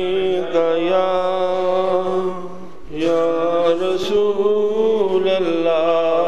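A man singing unaccompanied in long, wavering held notes, the wordless opening of a devotional naat. He takes a short break about three seconds in, then begins a second held phrase.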